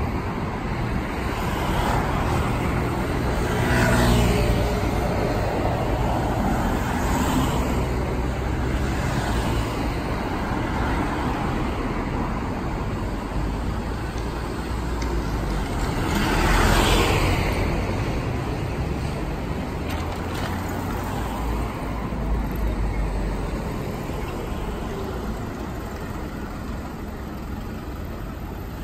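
Road traffic at a city intersection: cars and trucks passing and running steadily. Two vehicles go by louder, one about four seconds in and a louder one a little past halfway.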